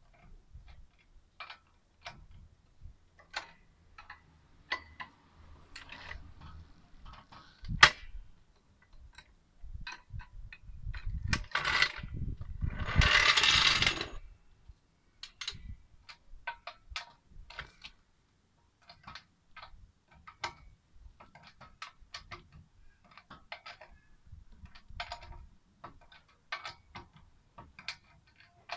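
Tyre-change tools on a car wheel: a red trolley jack and a lug wrench make scattered metal clicks and ratchet-like ticks, with one sharp clank about eight seconds in. A loud rushing scrape lasts two to three seconds a little past the middle, as the jack is let down and rolled out from under the car.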